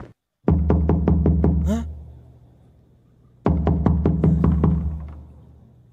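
Horror soundtrack sting, heard twice: a sudden deep droning boom with a fast run of sharp percussive hits, about seven a second, fading away over a second or so each time.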